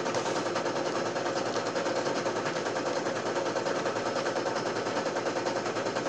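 Embroidery machine stitching: a steady, rapid run of needle strokes clacking at an even pace.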